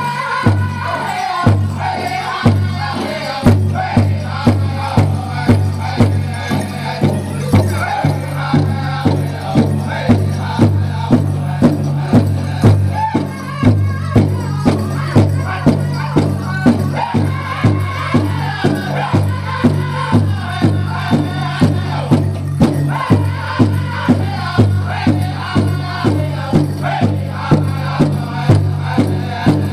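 Powwow drum group singing a grass dance song in high voices over a large drum beaten in a steady, even rhythm of about two beats a second.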